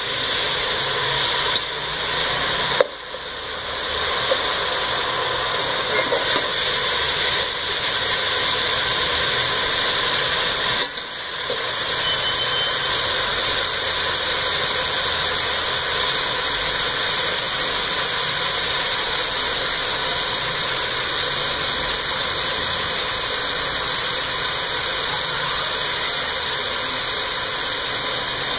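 Sliced onions frying in hot oil in a steel pot, a steady sizzle, stirred at first with a metal spatula. The sizzle dips briefly twice, about 3 and 11 seconds in.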